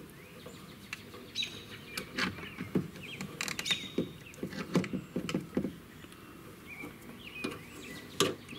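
Irregular small clicks and scrapes of a 1/8-inch Allen key working a screw out of a car's backup-camera bracket, the key not the intended T-20 Torx bit. Short bird chirps sound in the background.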